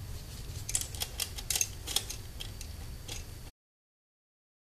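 Light, irregular clicks and ticks of small metal tool parts being handled, thickest over the first two seconds. The sound cuts out completely about three and a half seconds in.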